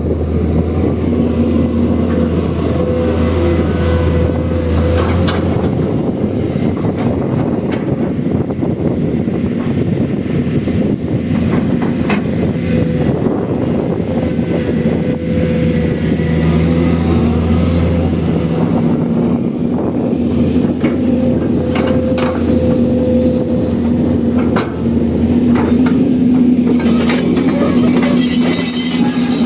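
Komatsu PC200 excavator's diesel engine running steadily under work, its note shifting a few times, with a few brief knocks mixed in.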